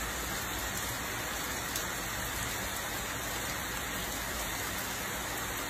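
Heavy rain falling steadily on a wet paved driveway and puddles, an even hiss.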